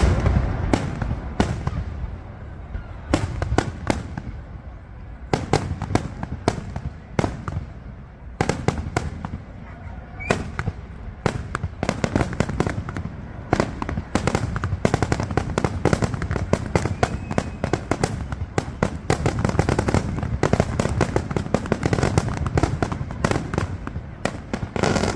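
Aerial fireworks going off: a string of sharp bangs and crackles, spaced out at first and coming thick and fast from about halfway through.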